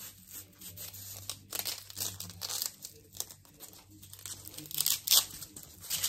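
Hook-and-loop (Velcro) tape being pulled apart, several rasping rips, the loudest about five seconds in.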